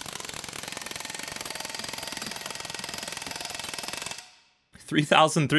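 Astro 4980 'Big Nasty' .498-shank air hammer hammering rapidly and steadily against a steel wedge, with the trigger feathered for minimum power yet still hitting hard; it stops about four seconds in.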